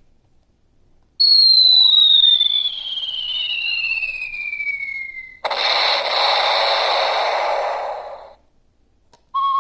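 Handheld sound-bite toy playing its "kaboom" effect through its small speaker: a whistle that falls steadily in pitch for about four seconds, like a dropping bomb, then a sudden noisy explosion that fades out after about three seconds.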